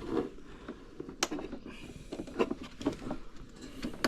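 Scattered light clicks and taps of hands and tools working the flex drive cable out of an RC boat, with a sharper click about a second in.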